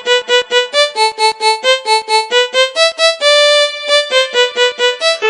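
Music played on a car sound system: a fast melody of short, separate keyboard-like synth notes, about five a second, with one longer held note a little past the middle. There are no vocals or bass under it.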